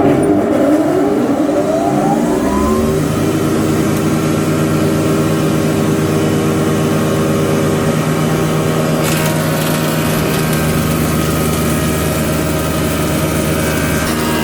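SR6-10 thickness planer's main motor and cutterhead switched on, whining up in pitch over about three seconds as they come up to speed, then running steadily with a loud multi-toned hum. About nine seconds in, a brighter hiss joins the running sound.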